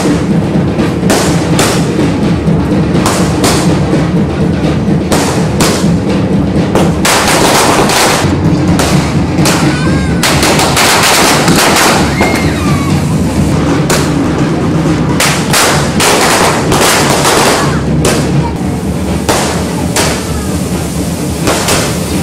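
Aerial fireworks bursting overhead in an irregular run of sharp bangs and crackles, with a few brief whistles partway through, over a steady background of music.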